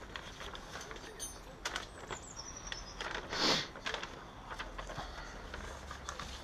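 Quiet handling noise: scattered light clicks and taps, with one short paper rustle about three and a half seconds in as the paper snorkel template sheets are handled. A bird chirps faintly in a short falling call at about two seconds.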